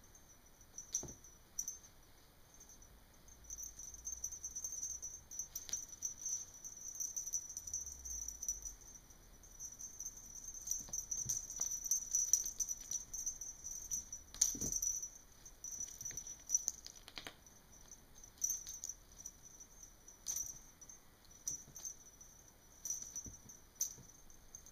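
Kitten playing with a feather wand toy on carpet: scattered soft taps, scuffs and rattles as it pounces and the wand's rod and feathers brush the floor. A thin, steady high-pitched hiss sits behind.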